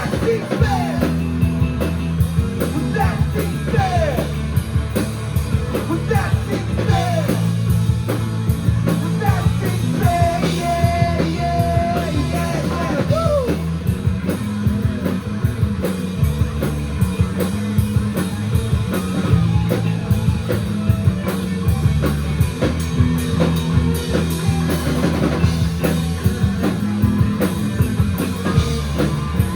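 Live rock band playing a cover song on drum kit, electric guitars and bass, with a bending lead melody line over roughly the first half.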